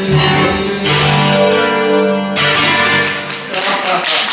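Guitar playing the closing bars of a slow bolero, with a new chord struck about a second in and a final strummed chord about two and a half seconds in that rings and dies away.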